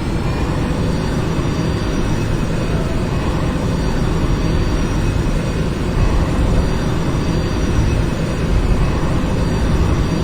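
Jet airliner's engines running: a loud, steady low rumble with a thin high turbine whine held at one pitch.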